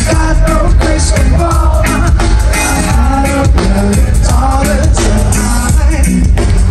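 Live reggae-rock band playing a song with a male lead singer, loud over a concert sound system as heard from within the festival crowd.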